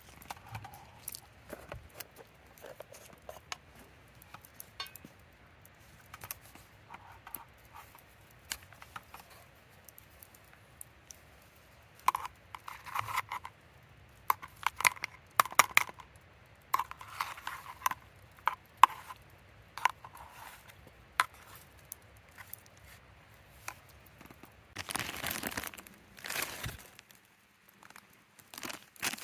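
Small handling noises: scattered light clicks, clinks and crinkling, busier in the middle, then a longer rustle a few seconds before the end.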